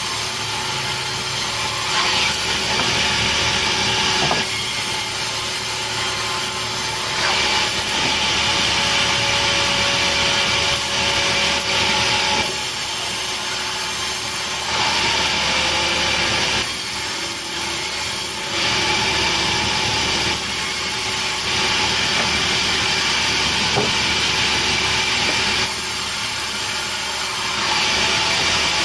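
Sawmill saw cutting petai logs: a harsh hissing cut that starts and stops every two to four seconds over the steady running of the machine.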